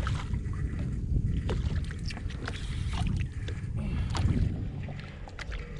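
Steady low rumble of wind and water on an open boat, with scattered light clicks and knocks.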